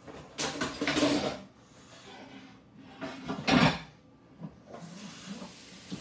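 Two bursts of clattering handling noise as removed gas-stove parts are picked up and taken to the sink, then a kitchen tap running as a steady hiss from about five seconds in.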